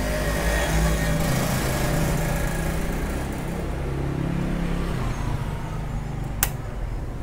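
A motor engine drones steadily, its pitch falling slightly after a few seconds, over a hiss that fades out about halfway through. A single sharp click comes near the end.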